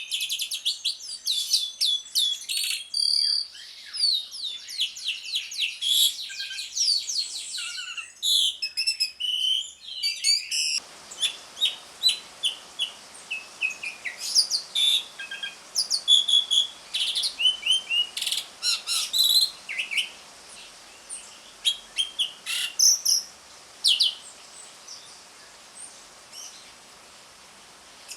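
Asian pied starling (jalak suren) giving rapid, high-pitched chattering 'ngriwik' calls. About eleven seconds in, the recording changes: a steady hiss comes in underneath and the chirps become sparser and more spaced out.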